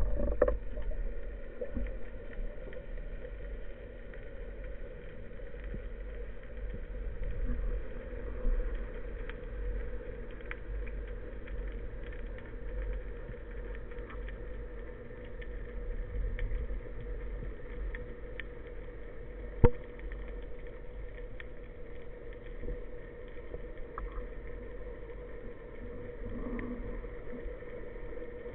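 Underwater ambience recorded through a waterproof camera housing on a speargun: a muffled low rumble with a steady hum, scattered faint ticks, and one sharp click about two-thirds of the way through.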